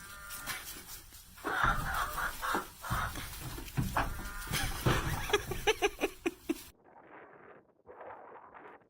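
A goat bleating several times in short, pitched calls. About seven seconds in the sound cuts abruptly to a fainter, narrower-sounding recording.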